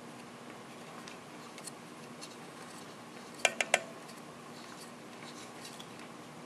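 Faint small clicks of a metal thumb screw and washer being hand-tightened against a carbon-fibre mounting plate, with two sharper clicks close together about three and a half seconds in.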